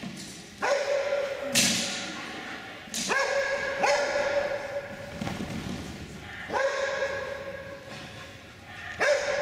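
A dog barking excitedly as it runs an agility course: about five drawn-out barks at the same pitch, each rising quickly into a held note, along with a couple of sharp thuds about one and a half and three seconds in.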